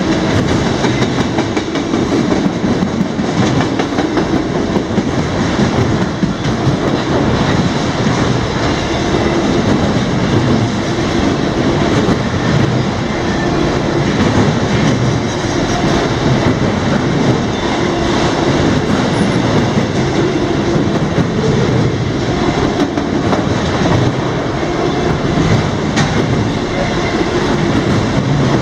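CSX freight train's cars rolling past at speed, a loud steady rumble of steel wheels on rail with continuous clicking and clacking over the rail joints.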